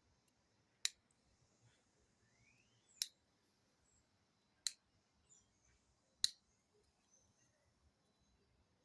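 Motorcycle handlebar light switch clicked four times, single sharp clicks roughly one and a half to two seconds apart. The switch is faulty: the high beam won't come on.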